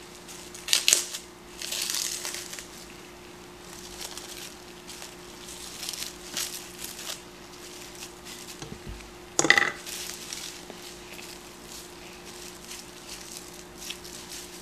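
Plastic cling wrap crinkling in short rustling bursts as it is pulled and pressed down over a container, with a sharp snap about nine and a half seconds in.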